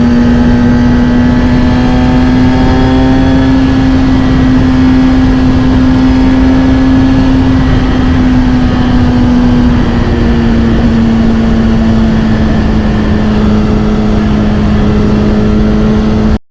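Kawasaki Ninja ZX-6R's inline-four engine through a Scorpion titanium exhaust, running steadily at cruising revs. The pitch climbs slightly, eases off a little about ten seconds in, and the sound cuts off suddenly at the very end.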